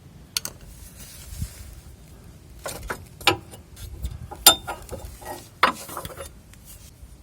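Metal hand tools clinking and knocking against the sway bar bushing bracket and its bolts under a Ford Transit Connect. It is an irregular series of sharp clinks, several close together in the middle and a couple more near the end.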